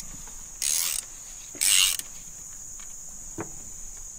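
Crickets chirring steadily, with two short, loud hisses about a second apart near the start and a faint click later on.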